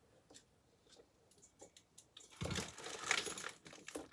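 Small clicks and a short clattering rustle as a part is handled and pulled back out of a computer case, the loudest stretch about two and a half seconds in.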